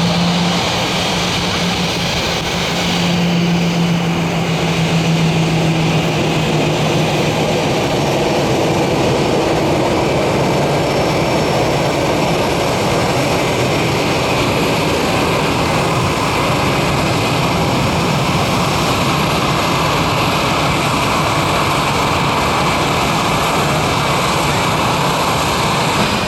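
Airbus A320 jet engines and airflow heard from inside the passenger cabin: a steady, loud rushing noise, with a low hum that fades out about seven seconds in.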